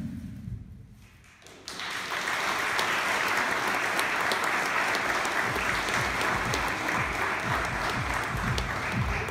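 Electronic dance music dies away, and after a short lull a seated audience breaks into applause about two seconds in, clapping steadily.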